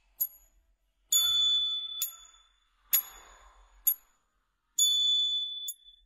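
Bell-like chime strikes in title music, about one a second, each a high, clear ding; two of them ring on for nearly a second.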